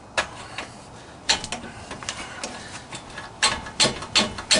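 Sharp metal clicks and knocks of a hand tool working at a stubborn rear axle seal in a Camaro's axle housing: a few single knocks, then a quicker run of knocks about every half second near the end.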